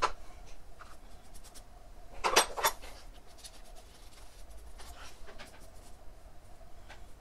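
A thin metal rod poking and scraping through gritty potting mix of perlite and turface, as short scratchy clicks. A quick cluster of three or four louder scrapes comes about two seconds in.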